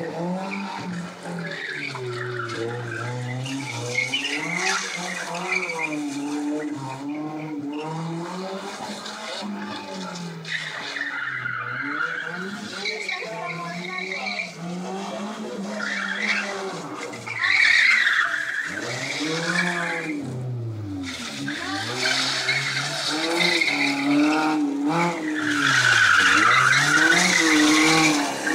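Seat Ibiza hatchback's engine revving up and down again and again as it is thrown through tight turns, with the tyres squealing in several stretches. It is loudest near the end.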